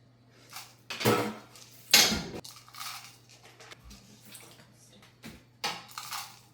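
Kitchen dishes and utensils clattering and knocking together in a string of separate clinks and clunks, the loudest about two seconds in.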